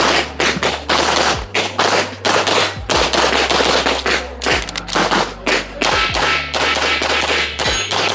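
Rapid 9mm pistol fire from a CZ Shadow 2: sharp shots several a second, in quick runs with short pauses between them.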